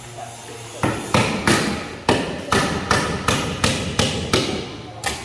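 Hammer blows on the wooden planking of a racing boat being built, a steady run of sharp strikes about three a second, beginning about a second in.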